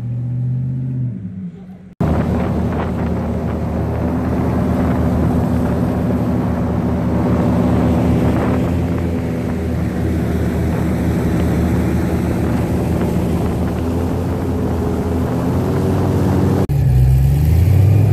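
Airboat's engine and air propeller running at speed: a loud, steady drone with a rush of wind. It starts suddenly about two seconds in, after a lower hum, and shifts pitch near the end.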